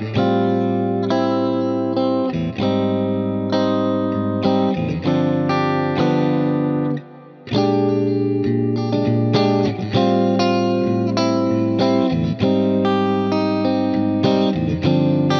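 Fender American Ultra Luxe Stratocaster electric guitar playing ringing chords and melody lines through an amp-modelling plugin with delay and reverb. The playing stops for a short break about halfway through.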